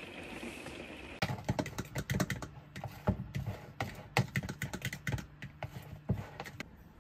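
Batter being whisked by hand in a mixing bowl, the utensil clicking rapidly and irregularly against the bowl, starting about a second in and stopping shortly before the end. Before it, a steady hiss of rain on the camper.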